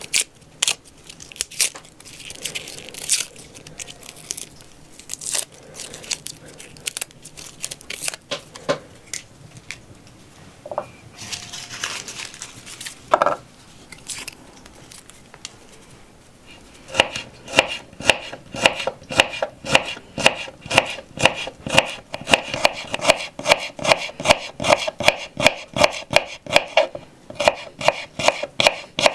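A small knife working through garlic: papery skins peeled and crinkling with scattered light clicks, then, a little past halfway, the knife slicing cloves on a wooden cutting board in a quick, even rhythm of about three strokes a second.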